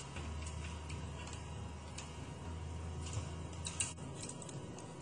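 Small scattered clicks and ticks of metal robot-kit parts being handled and fastened: a screw and lock nut being worked on an aluminium Makeblock beam with a screwdriver, with a short run of clicks near the end. A faint steady hum lies underneath.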